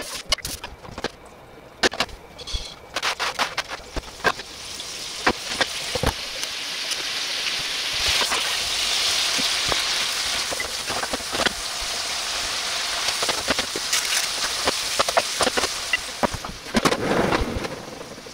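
Sliced onions sizzling in oil in a frying pan, with a wooden spatula knocking and scraping against the pan as they are stirred. The sizzle builds up over the first few seconds and dies away near the end, where there is a short clatter.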